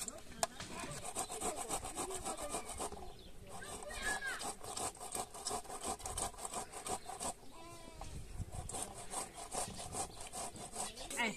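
Hand saw cutting through wood, with rhythmic back-and-forth strokes at about three to four a second, in three runs broken by two short pauses.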